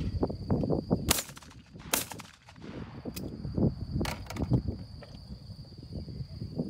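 Two shotgun shots about a second apart, a pair fired at clay targets, the second trailing off in a short echo.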